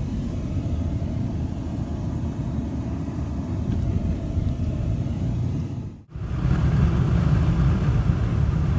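Steady low road and engine rumble heard from inside a moving vehicle's cabin. It drops out briefly about six seconds in and comes back louder.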